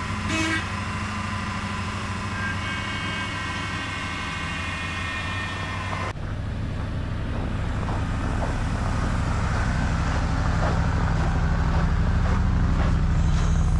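2024 Ford Super Duty's 7.3-litre gas V8 idling steadily just after a cold start in about minus 17 degree cold. From about six seconds in the exhaust is louder and deeper.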